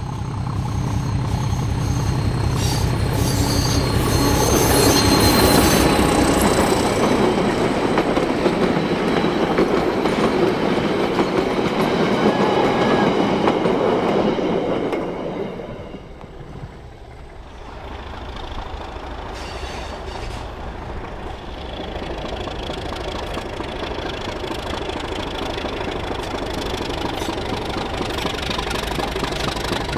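English Electric Di-class diesel-electric locomotive and its train passing close, engine running and wheels rumbling on the rails, loudest a few seconds in and fading by about halfway. After a brief drop, the locomotive is heard again approaching, its sound building slowly.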